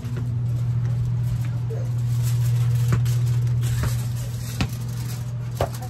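A steady low hum, with a few light clicks and rustles of aluminium foil being worked over a foil pan.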